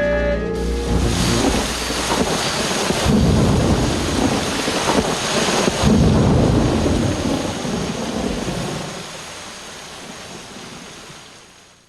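Thunderstorm: steady heavy rain with rolls of thunder about three and six seconds in, the whole fading away near the end.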